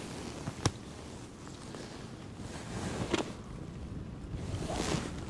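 Wind rumbling on the microphone, with one sharp click less than a second in and two brief noisy swells later on.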